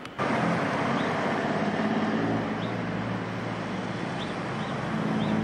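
Steady street noise of motor vehicles: a low engine hum under a rushing haze, cutting in abruptly just after the start, with a few short high chirps.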